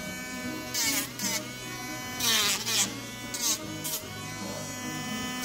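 Electric rotary nail grinder running on its high setting with a steady whine. Several times its sanding drum is pressed to a dog's thick nail, adding a short gritty rasp and pulling the motor's pitch down as it files the nail back.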